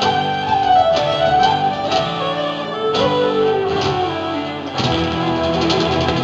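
Small folk band playing live through a PA: a fiddle carries the melody over strummed acoustic guitars and electric bass. A falling melodic run comes a little after three seconds in, and the bass line drops out briefly, returning about five seconds in.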